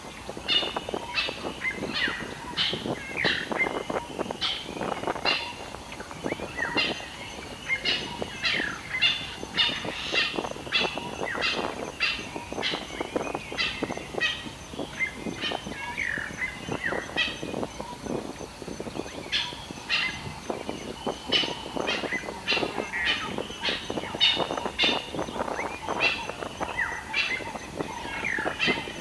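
Birds chirping and calling almost without pause: many short, high calls, several with a quick downward sweep.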